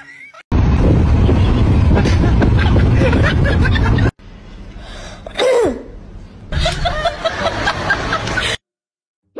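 Wind and road noise rushing in through an open car window. It is loud and steady with a deep rumble for about three and a half seconds, then cuts off. Quieter mixed sounds follow: one falling glide, then a run of short chattering sounds near the end before silence.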